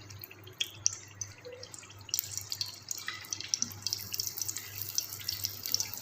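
Aloo tikki (spiced potato patties) frying in hot refined oil, a fine sizzling crackle that grows denser about two seconds in.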